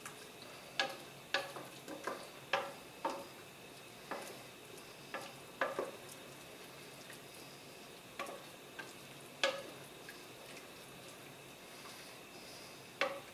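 Wooden spoon stirring a sauce in a stainless steel pot, knocking irregularly against the pot's side, over a faint steady sizzle from the pot on the gas flame.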